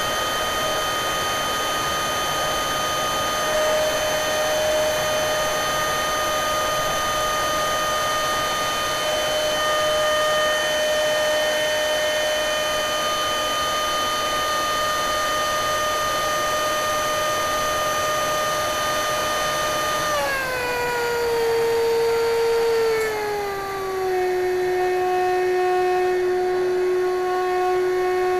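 Electric ducted fan of a foam RC F-16 model jet whining at a steady high pitch, with rushing air, heard from a camera inside the model. About twenty seconds in, the pitch falls in two steps and settles lower as the motor slows.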